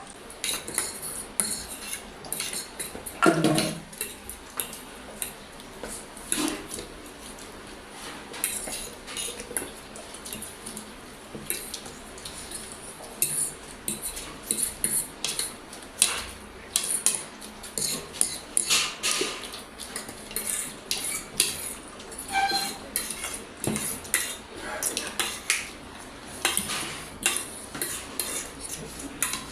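Cutlery clinking and scraping on plates during fast eating: a dense, irregular run of small clicks, with a louder knock about three seconds in.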